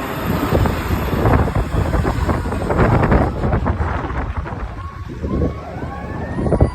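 Fire engine's diesel engine rumbling, with wind buffeting the microphone. About five seconds in, a siren starts up and rises in pitch.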